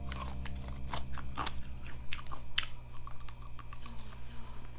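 Close-miked crunching bites and chewing of crispy chicken-leg skin, a series of irregular crunches.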